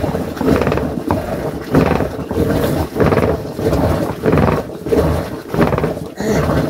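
Traditional wooden churning stick spun back and forth by a rope in a pot of milk, making a rhythmic swishing grind with each pull, about one and a half strokes a second.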